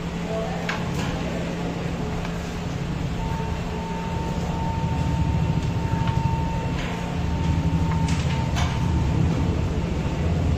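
A steady low machine hum, like a fan or air-conditioning unit running, with a few sharp clicks and a thin steady tone through the middle.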